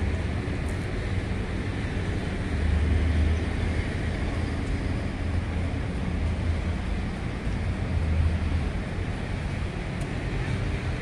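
Outdoor ambience of wind buffeting the microphone, a steady rumble that swells and fades, over a faint hum of distant traffic; no train is passing.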